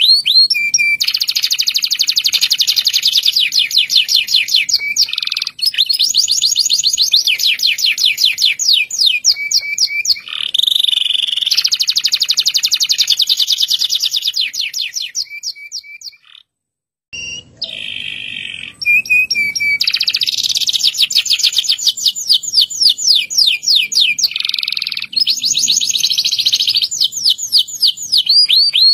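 Domestic canary singing long rolling trills: rapid runs of repeated high notes in long phrases, broken by short pauses and a silent gap of about a second past the middle.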